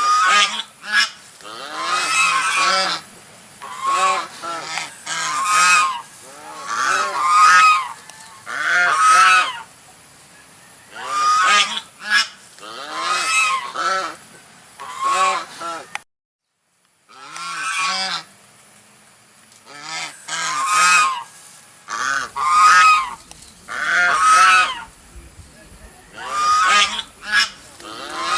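Geese honking: loud pitched calls in clusters, one after another, broken by a sudden cut to silence of about a second just past the middle.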